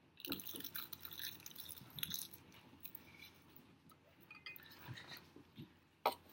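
Crisp seaweed being bitten and chewed close to the microphone: a dense, crackling crunch. A sharp click comes near the end.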